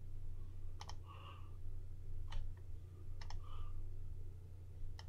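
Computer mouse buttons clicking: a few sharp clicks spaced a second or so apart, some in quick press-and-release pairs, over a steady low hum.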